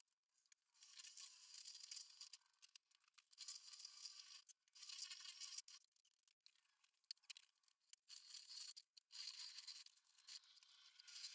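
Gritty scraping and swishing of a rod stirring a wet refractory lining mix in a plastic bucket, in strokes of about a second with short pauses between.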